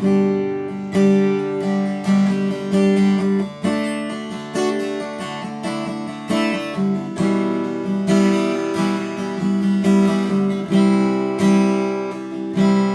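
Taylor 114e acoustic guitar strummed in chords, a stroke about every half second to a second, as the song's instrumental intro.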